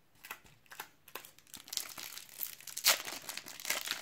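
Shiny wrapper of a trading-card packet crinkling in the hands and being torn open: scattered crackles at first, growing dense about a second and a half in, loudest near three seconds.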